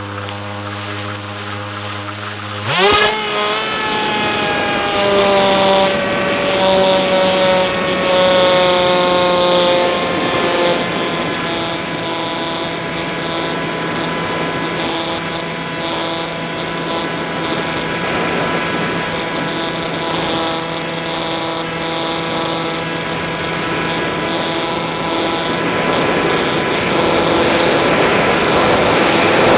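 Electric motor and propeller of an Easy Star RC plane heard from its onboard camera. It gives a low hum at first, then about three seconds in revs up sharply to a high whine. The whine sags slightly in pitch over the next several seconds and then holds steady, while the rush of wind grows louder near the end.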